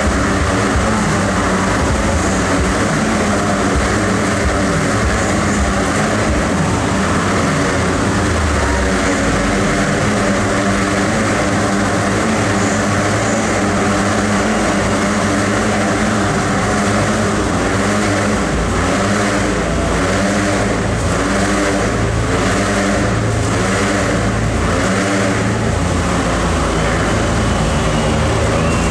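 Motorcycle engines running hard inside a steel-mesh globe of death, their pitch wavering up and down without a break as the riders circle.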